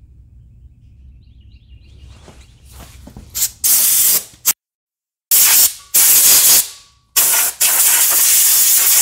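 Compressed-air blow gun blasting in a series of short bursts of loud hiss, blowing grass and dirt off the tractor's rear housing. The bursts begin about three seconds in, and the last one is held for about two seconds.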